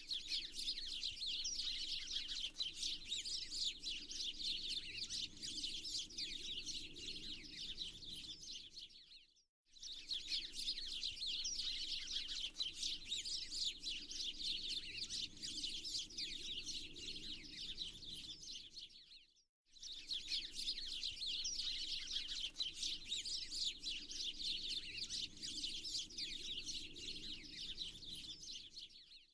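Dense chorus of many small birds chirping and twittering over a low steady background hum: a looped birdsong ambience track that cuts out for a split second about every ten seconds, twice here.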